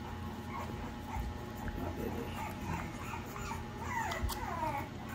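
Three-week-old American bully puppy whimpering in short, high squeaky cries that rise and fall, as it is put to a milk bottle's teat. The cries come in a quick flurry about four seconds in.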